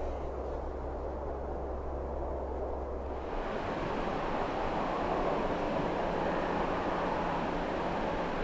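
Outdoor noise with a steady low hum. About three seconds in the hum stops and a broader rushing noise takes over, swelling and easing, as of a vehicle going by on the road.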